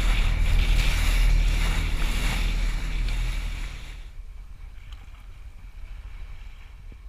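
Wind buffeting a GoPro's microphone over rushing water from a boat moving across open sea. It drops sharply about four seconds in.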